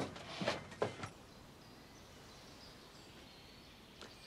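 Quiet woodland ambience with faint, high bird chirps. It follows a few louder, sharp sounds in the first second.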